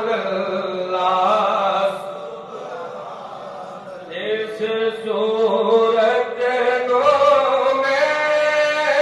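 A man singing a devotional naat solo through a microphone, holding long wavering notes. About two seconds in his voice drops softer, then it swells back up about four seconds in.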